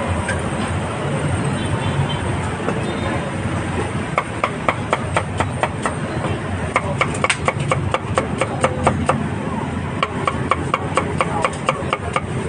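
Cleaver chopping grilled meat on a chopping block: quick, even strikes about four a second, coming in runs from about four seconds in, over a steady background din.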